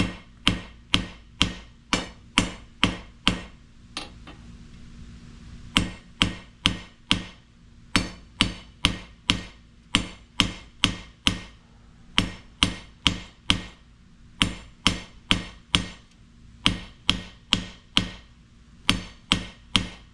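Small ball peen hammer striking hot steel on an anvil, drawing out a taper: steady blows about two a second, each with a short metallic ring, in runs broken by brief pauses, the longest about two seconds near the start.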